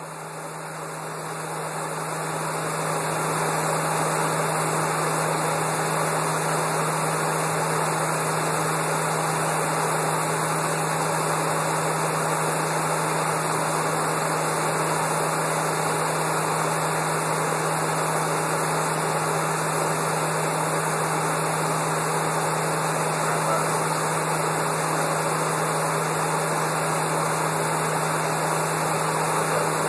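Learjet cabin noise in high-altitude cruise: a steady rush of airflow with a constant low hum underneath. It swells over the first few seconds, then holds even.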